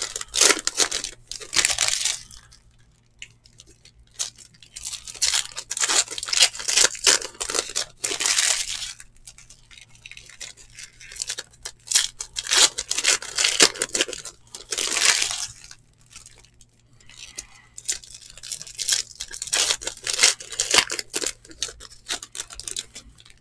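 Foil trading-card pack wrappers being torn open and crinkled by hand, in four clusters of crackling with short pauses between them.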